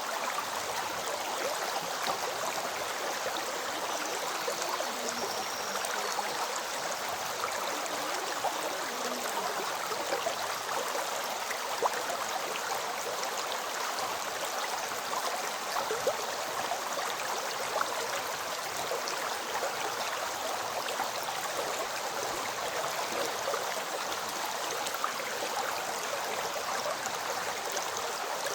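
River water flowing: a steady, even rush with a few brief, sharper splashes.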